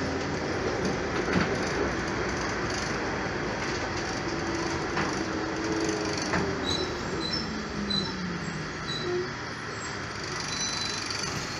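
Cabin noise of a moving city bus: a steady rumble of engine and road, with a low whine that shifts in pitch and a few sharp rattles and knocks.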